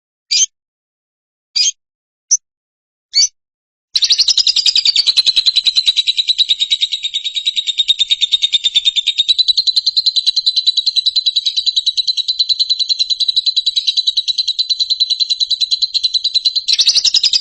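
Recorded birdsong of the kind played as training 'therapy' for caged songbirds. A few short, high chirps are followed about four seconds in by a long, very rapid trill held at one high pitch.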